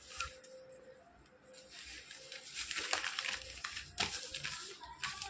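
Sheets of a printed paper exam booklet rustling and crinkling as they are handled and turned, in uneven bursts, most busily after the first second and again about four seconds in. A faint steady tone runs beneath the first half.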